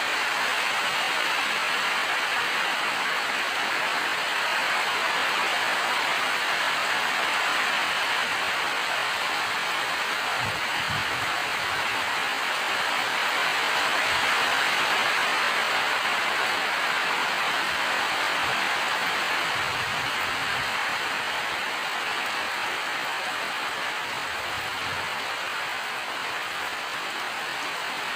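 Steady rainfall, an even hiss of drops falling on surfaces, with a few faint low thuds here and there.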